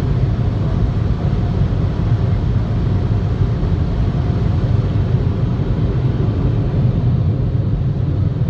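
Steady low rumble inside a car's cabin: engine and road noise heard through the closed windows.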